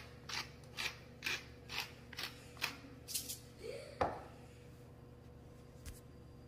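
Hand pepper mill being twisted to grind black pepper: a run of short ratcheting clicks, about two a second, for roughly three seconds, then a single knock about four seconds in.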